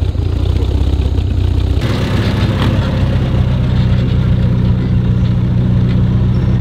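Austin-Healey 3000's straight-six engine idling. About two seconds in, the sound switches to a Triumph Spitfire's four-cylinder engine idling steadily.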